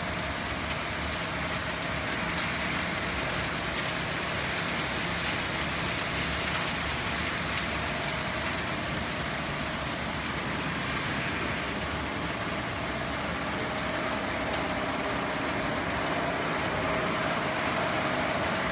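Haitian XL200 rollover car wash machine running: its soft brushes spin against a car under water spray, giving a steady rain-like hiss. A faint steady machine hum runs underneath.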